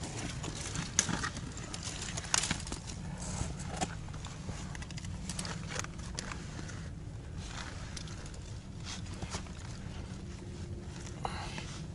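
Irregular knocks, clicks and scrapes of a climber moving up a rock face, over a steady low rumble.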